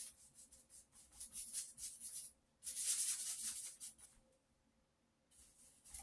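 A flat paintbrush's bristles scrubbing back and forth on paper in quick short strokes, a scratchy hiss. The scrubbing gets denser and louder about three seconds in, stops for a moment, and comes back briefly near the end.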